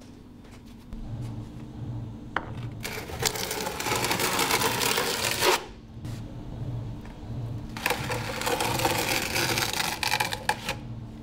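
Steel trowel scraping and spreading a thin layer of mortar across a concrete balcony slab, in two long strokes of about three seconds each.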